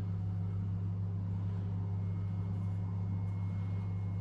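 Steady low electrical hum at an even level, in the kitchen or picked up by the recording.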